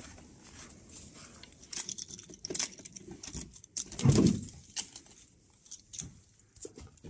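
Keys jangling on a keyring, then a key and handle working the lock of a metal door, with one heavy clunk about four seconds in as it unlatches.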